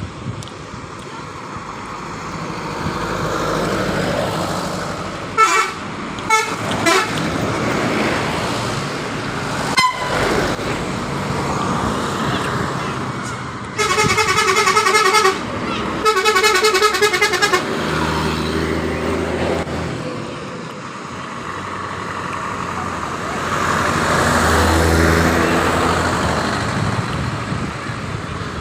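Telolet horn on a coach bus: a multi-tone musical air horn gives a few short toots, then two long warbling melodic blasts about fourteen and sixteen seconds in. The bus's diesel engine runs beneath it and swells twice as the bus moves off and passes.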